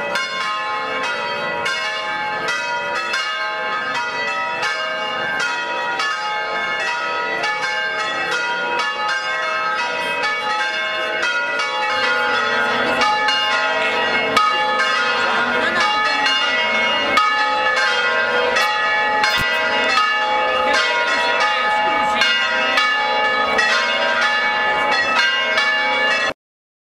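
Church tower bells ringing a fast festive peal: several bells of different pitches struck over and over in quick succession. The ringing cuts off suddenly near the end.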